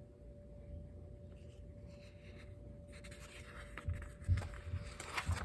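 Soft paper rustling and handling noises from a picture book, with a few dull low thumps in the second half. A faint steady hum runs underneath.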